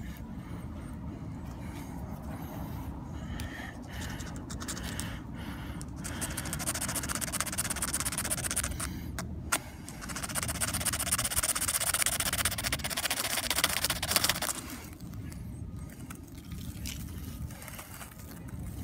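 Steel striker scraped rapidly along a ferrocerium rod to throw sparks onto cotton tinder. The scraping starts about six seconds in, breaks briefly halfway, and stops near the end of the strikes; before it there are only soft handling sounds.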